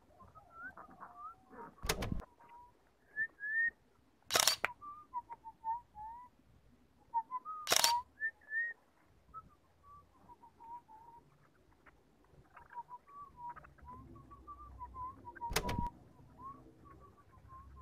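Short, thin chirping whistle-like notes coming irregularly, broken by four sharp clacks spread through.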